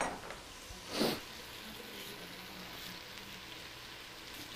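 Faint, steady sizzling of onion, garlic and red pepper sweating in a pot, with one short soft noise about a second in.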